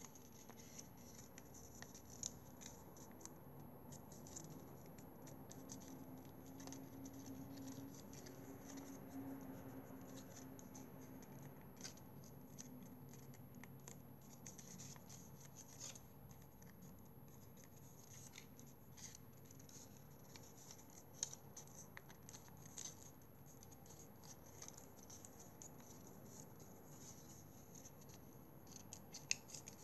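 Faint rustling and crinkling of a paper strip being folded and creased by hand, with many small scattered ticks and a few sharper clicks, the last near the end.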